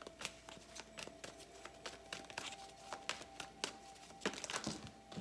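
A deck of tarot cards shuffled by hand: an irregular run of soft card clicks and slaps as packets of cards are dropped and squared.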